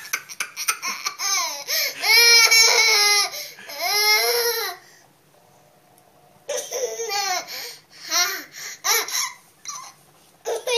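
A toddler giggling in repeated high-pitched bursts, then falling quiet for about a second and a half past the middle before a few shorter giggles and vocal bursts.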